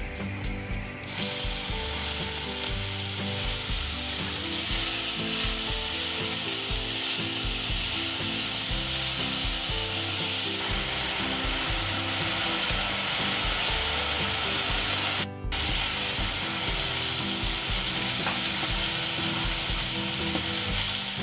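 Chopped green chillies sizzling loudly as they fry in hot oil in a nonstick pan, with a spatula stirring them. The sizzle grows much louder about a second in and breaks off briefly about two-thirds of the way through, with soft background music underneath.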